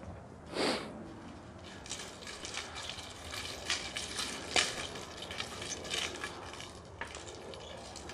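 Three-sectional wooden staff being twirled and swung: one brief swish about half a second in, then a run of light clacks and rattles as the linked wooden sections knock together.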